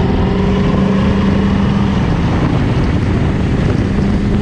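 7.3 L Powerstroke V8 turbo-diesel running under load with a straight-piped turbo-back exhaust (no muffler, no catalytic converter), rolling coal on a performance tune. The engine note drops away about halfway through and returns near the end, with wind rushing over the microphone.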